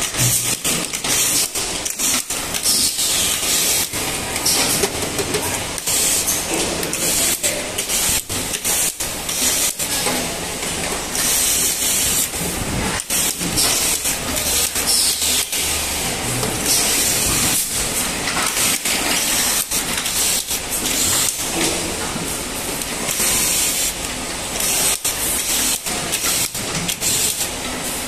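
Bottling-line noise: a steady hiss with many small clicks and knocks, and louder bursts of hiss every few seconds, as a hand-held capping tool tightens caps on plastic bottles moving along a conveyor.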